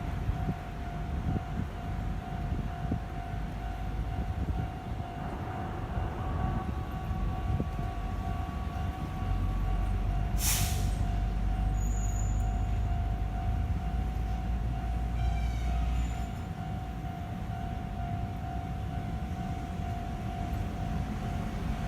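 Level-crossing warning alarm sounding steadily while a Kintetsu electric train runs through the crossing, its low rumble loudest from about nine to sixteen seconds in. A brief sharp hiss about halfway through.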